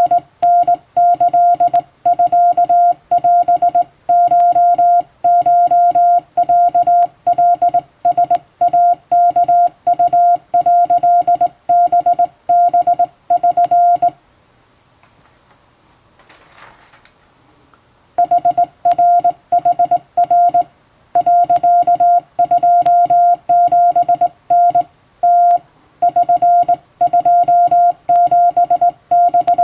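Hand-keyed Japanese Wabun Morse code: a single steady beeping tone switched on and off in dots and dashes, breaking off for about four seconds midway before the sending resumes.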